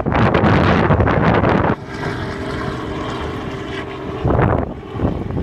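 Wind buffets the microphone in loud gusts for nearly two seconds. Then an old airplane's engine drones steadily, with another couple of wind gusts near the end.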